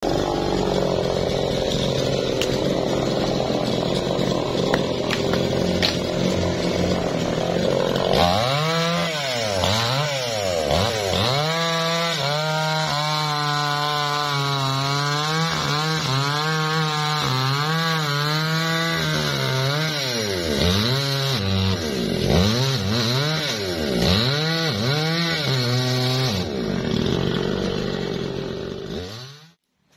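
Two-stroke chainsaw cutting through teak logs at high revs. For stretches the engine note swings up and down again and again as the chain loads and frees in the wood. The sound stops abruptly near the end.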